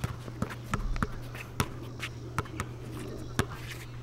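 Basketball being dribbled on a hard court: a string of sharp, irregularly spaced bounces over a steady low hum.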